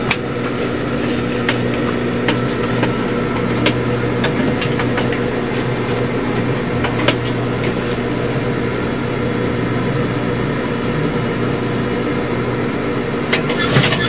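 Electric motor of an industrial sewing machine running steadily with a low hum while the machine sits idle, with a few light clicks as the needle area and thread are handled.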